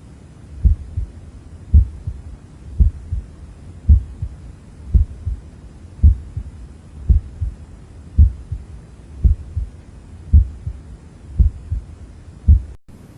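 Recorded human heartbeat: a steady run of paired low thumps, the lub-dub of the first and second heart sounds, a little under one beat a second, over a faint steady hiss. The sound breaks off briefly near the end.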